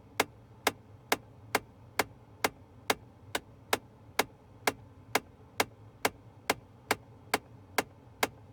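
Failing HVAC blend door actuator clicking inside a Ford Fiesta ST's dashboard: a sharp, evenly spaced click about twice a second, the sign of a failing actuator.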